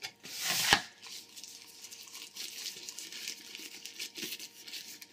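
Hands unwrapping a small plastic box from its soft protective wrapping: a loud rustle with a brief knock a little under a second in, then quieter crinkling and rustling of the wrapping.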